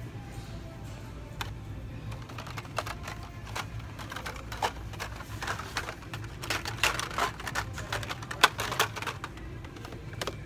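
Carded Hot Wheels blister packs clicking and clattering as they are flipped through on pegboard hooks. It is a quick, uneven run of light clicks, busiest in the second half.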